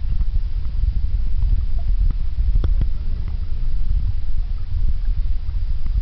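Low, steady underwater rumble with scattered faint clicks and one sharper click about two and a half seconds in.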